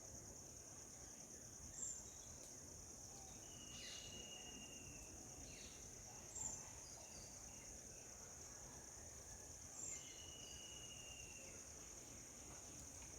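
Steady high-pitched insect drone, like a cricket chorus, with three short high chirps about four seconds apart and a couple of thin, held whistle notes from birds.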